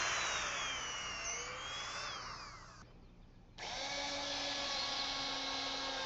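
Power drill boring pilot holes through cedar deck boards. The motor whines and drops in pitch as it winds down about halfway through, stops briefly, then starts again and runs steadily for the next hole.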